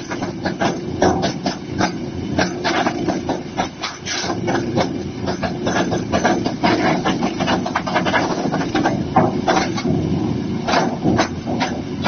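Petrol-engine JADE CS-1200 wood chipper running under load as a branch is fed through: a steady engine drone, with rapid, irregular cracks and snaps as the wood is chipped.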